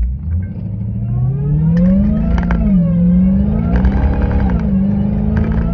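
2017 Dodge Charger SRT Hellcat's supercharged 6.2-litre V8 heard from inside the cabin under hard acceleration from a launch. The revs climb, drop sharply at two upshifts about 2.5 and 4.5 seconds in, then hold, with a high supercharger whine rising alongside the engine note.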